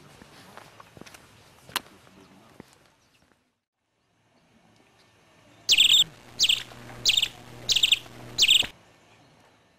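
Sparrows chirping: five loud, evenly spaced chirps over about three seconds, starting a little past the middle. Before them there is only faint background with a few light clicks and a short silent gap.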